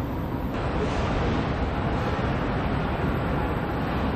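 Steady rushing noise of a factory hall, which gets brighter and a little louder about half a second in.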